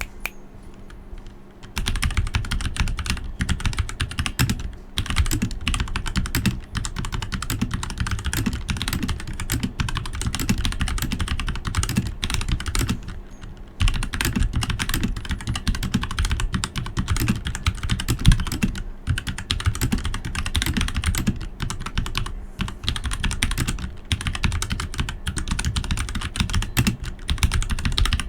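Dierya EK63 60% mechanical keyboard with Gateron red linear switches and PBT keycaps being typed on fast: a dense, continuous run of keystroke clacks that starts about two seconds in, with a brief pause about halfway through.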